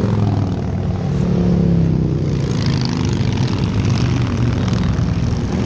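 Motorcycle engine running steadily at cruising speed, with wind noise rushing over the microphone.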